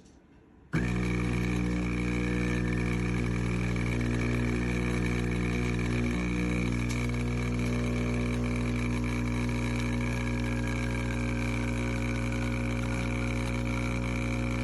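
ICUIRE espresso machine's pump buzzing loudly and steadily, switching on abruptly just under a second in.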